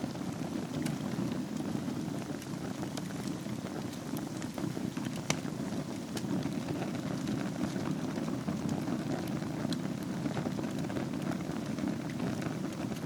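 Wood fire burning in a fireplace over a bed of embers: a steady low rush of flame with scattered sharp crackles and pops, one louder pop about five seconds in.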